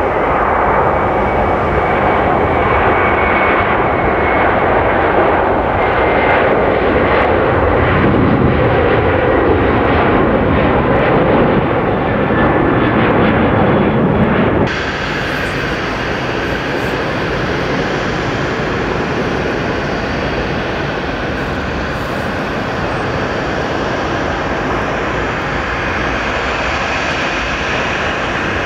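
Airbus A330's twin jet engines at takeoff power as it rolls down the runway and lifts off. About halfway through, the sound cuts abruptly to quieter, steadier jet engine noise from a second airliner, an Airbus A321, on the runway.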